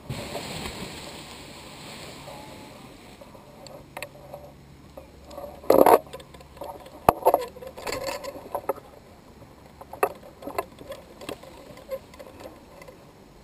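Paragliding harness gear being unclipped: scattered rustles, clicks and knocks of straps, buckles and carabiners, the loudest about six seconds in. A rush of wind on the microphone fills the first few seconds.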